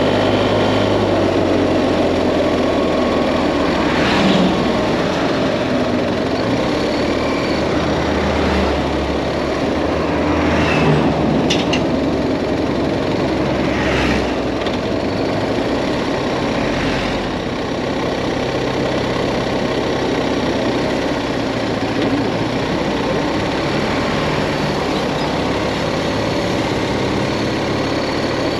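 BMW GS Adventure motorcycle engine running steadily while riding along at low speed, heard from the rider's position with road and wind noise.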